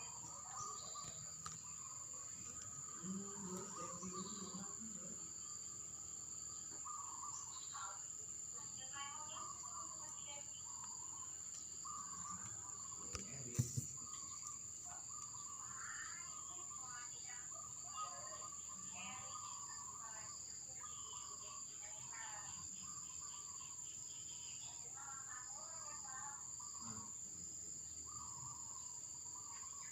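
A songbird singing varied chirping phrases in repeated bursts, over a steady high-pitched insect drone, with a short knock about halfway through.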